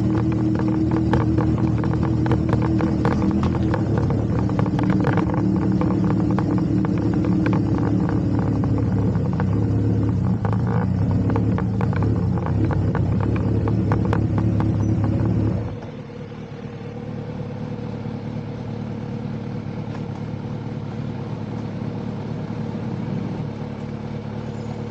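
Motorcycle engine running with a clattery ticking. About sixteen seconds in the loudest engine sound drops off sharply, and a quieter steady engine sound carries on.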